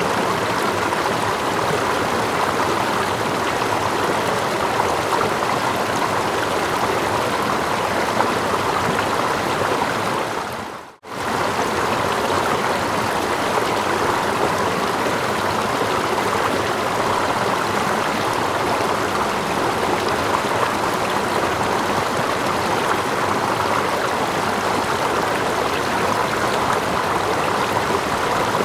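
Steady rushing of running water from a stream and a small waterfall, with water lapping close by. About eleven seconds in, the sound fades out to a brief moment of near silence and comes straight back.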